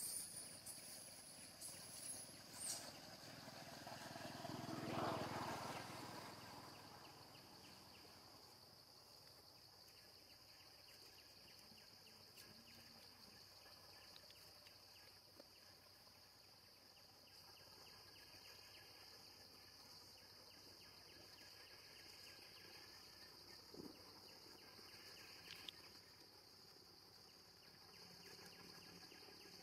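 Steady high-pitched insect drone in the background, with a louder swell of noise that rises and fades about five seconds in.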